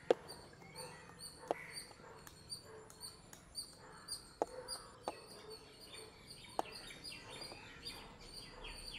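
A steel knife cutting through paneer and tapping the metal plate beneath, about five sharp clicks spaced a second or more apart, with birds chirping faintly in the background.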